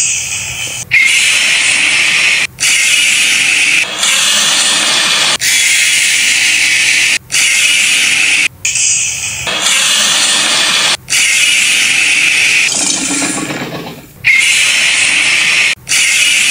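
A run of loud, harsh, screeching Godzilla roar sound effects, cut one after another with brief gaps between them.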